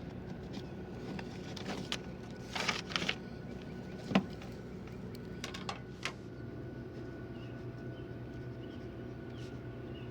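A steady vehicle engine hum with a handful of short knocks and clicks, the sharpest about four seconds in.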